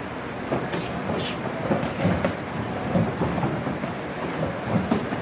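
Sparring in a boxing ring: irregular thuds of gloved punches and feet on the ring canvas, over a steady rumbling background noise.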